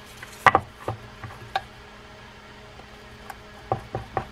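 Small clicks and taps of screws and a screwdriver against a metal fishing reel as short screws are fitted into the reel seat: a couple of sharp ones about half a second in, a few lighter ones up to about a second and a half, then a quick run of ticks near the end.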